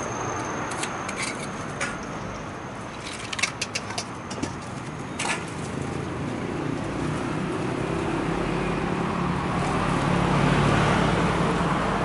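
Outdoor street noise with a motor vehicle passing: a low engine hum grows louder in the second half. A short cluster of sharp clicks and clinks sounds about three to five seconds in.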